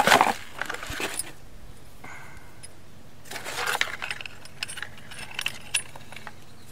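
Handling noise of brass pipe fittings being threaded onto an irrigation flow meter. There is a loud rustle and clink at the start and another burst about three and a half seconds in, with scattered small metallic clicks between and after them.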